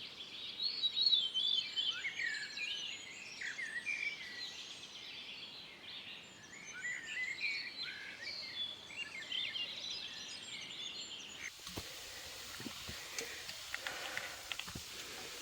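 Songbirds singing in the woods, several short warbling phrases overlapping and repeating. About eleven seconds in, the birdsong gives way to a faint steady hiss with a few scattered clicks.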